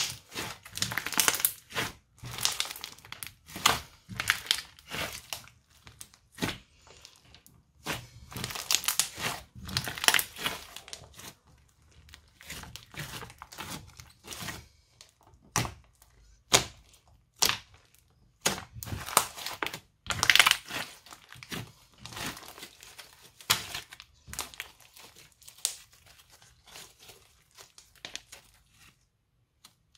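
Hands squeezing, kneading and stretching a crunchy slime studded with beads, making irregular bursts of crunching that come in clusters with short quiet pauses between them.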